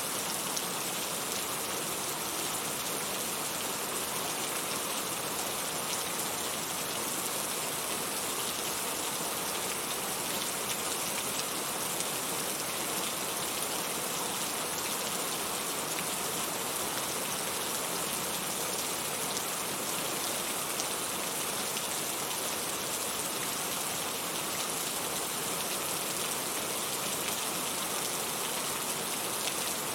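Heavy rain falling steadily, a dense even hiss of drops with fine patter on surfaces, unchanging throughout.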